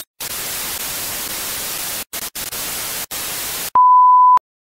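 Television static hiss, broken by several brief dropouts, then a single steady test-tone beep lasting just over half a second that cuts off abruptly: the bars-and-tone reference signal of a TV test pattern, used as an end transition.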